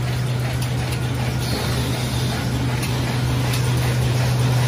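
Square-bottom paper bag making machine running steadily in production: a constant low hum under an even mechanical hiss, with a few faint ticks.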